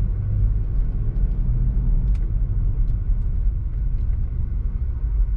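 Low, steady rumble of a turbocharged BMW's engine and tyres, heard from inside the cabin while driving slowly, with the engine still warming up. A few faint ticks sound here and there.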